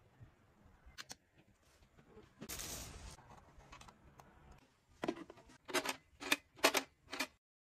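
Small plastic gadgets being handled: a few soft knocks and a brief rustle, then five sharp clicks about half a second apart as a wall-mounted cotton-pad dispenser's push button is pressed.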